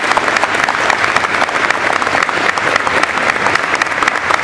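Audience applauding: many hands clapping at once in a steady, dense stream of claps.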